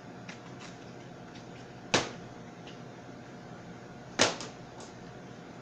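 Two sharp knocks on a work surface about two seconds apart, each ringing briefly, the second followed by two lighter taps, with a few faint ticks before them. They come as the pulled sugar log and tools are handled on the mat, over a steady hum of kitchen ventilation.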